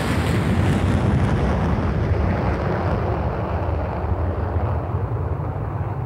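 Boeing B-52 Stratofortress's eight jet engines at take-off power, a loud continuous roar with a deep rumble. The higher hiss fades steadily as the bomber climbs away.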